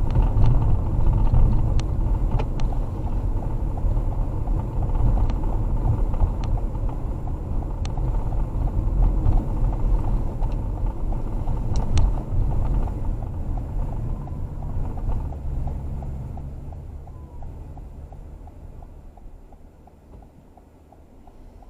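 Inside a moving car: the low rumble of road and engine noise, dying away over the last several seconds as the car slows. A steady ticking runs along with it, the sound of the turn signal for the right turn.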